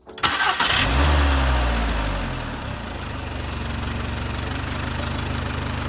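Volkswagen Golf four-cylinder petrol engine starting up: it catches suddenly, revs up briefly, then settles within about two seconds into a steady idle. It is running on all four cylinders, after a failed ignition coil on cylinder three was replaced.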